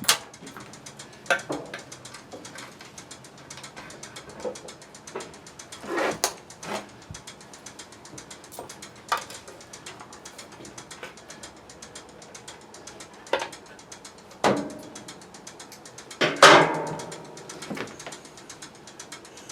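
Metal hand tools working on a pressure washer's small engine: scattered clicks and knocks with ratchet-like clicking, the loudest knocks about six seconds in, around fourteen seconds, and a couple of seconds before the end.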